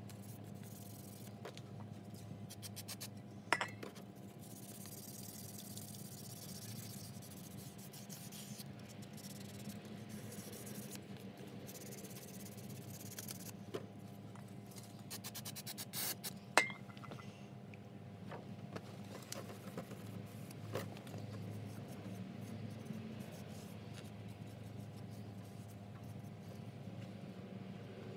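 Fine sandpaper rubbed by hand over black plastic BMW E60 steering-wheel trim covers, in short scratchy bouts, smoothing out unevenness before spraying. Two sharp clicks with a short ring stand out, about 3.5 s and 16.5 s in, over a faint steady hum.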